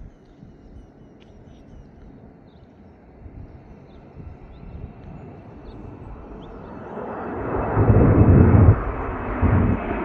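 An airplane passing over: its engine noise grows steadily louder, peaks about eight seconds in, then begins to fade.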